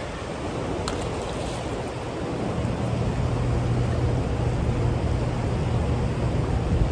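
Steady rush of turbulent water below a hydroelectric dam, with a low rumble underneath that grows stronger a few seconds in.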